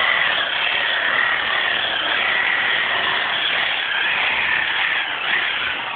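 Electric drill running steadily at full speed, spinning a magnet fixed to its chuck to degauss the TV screen, with a faint wavering whine; it eases off near the end.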